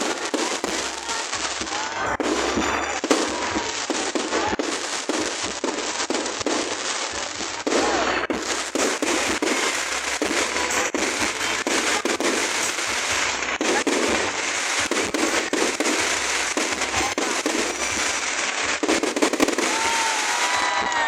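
Fireworks display: a dense, continuous barrage of many shells bursting and crackling together, with a louder surge of bursts about eight seconds in.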